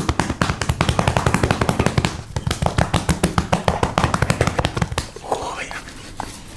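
Rapid, repeated pats of a flat hand on a dog's furry side, several slaps a second, thinning out about five seconds in.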